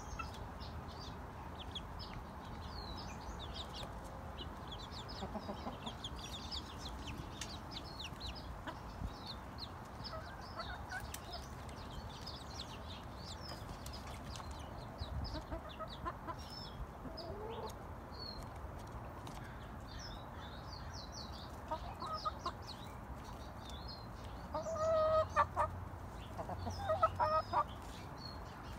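Young chickens giving soft, short high peeps and chirps throughout, with a few louder clucking calls near the end.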